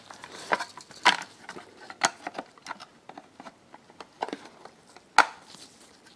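Handling noise from an Asus internal DVD-ROM drive being reassembled: its circuit board and plastic housing give scattered sharp clicks and knocks, roughly one a second, with light rubbing between as the parts are fitted back together.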